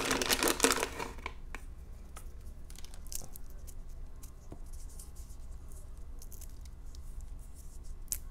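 Crinkling of a plastic package for about the first second, then a few sparse, small snaps and clicks as pecans are broken by hand.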